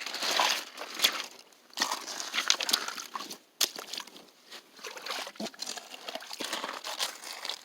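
Footsteps crunching and rustling through brush and leaf litter, mixed with clothing rustling close to the microphone, in an irregular run of crackles with a little water sloshing.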